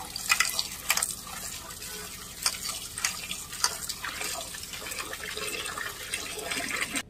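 Water running from a tap into a metal pot while a hand swishes chopped vegetables (bottle gourd stems, potato pieces and leaves) to wash them, with scattered splashes. The sound cuts off abruptly near the end.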